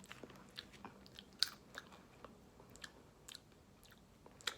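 Dry roasted pumpkin seeds being crunched and chewed in the mouth: irregular, sharp crunches.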